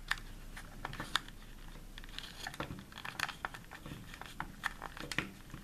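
Light, irregular plastic clicks and rubbing from the plastic case of a digital multimeter as its back cover is worked off by hand and the battery connector is slipped through.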